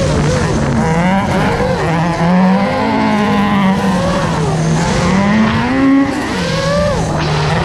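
Mk II Ford Escort track cars' engines running hard on the circuit, their pitch rising and falling with the revs. Over them is the wavering whine of the FPV drone's motors as the throttle is worked.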